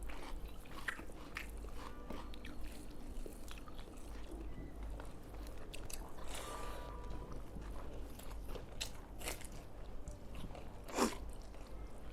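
People chewing and biting on rice and pepper chicken, with scattered small clicks and crunches from eating, and one louder sudden sound about eleven seconds in.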